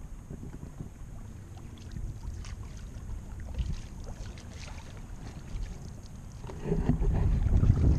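Canoe being paddled across a lake: small paddle splashes and water sounds under steady wind rumble on the microphone. The wind noise grows louder about seven seconds in.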